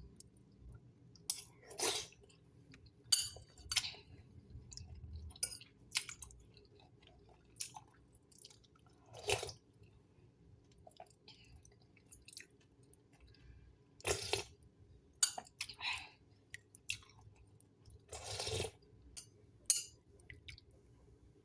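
A person eating herbal soup, chewing and sipping in short, irregular sounds one to a few seconds apart.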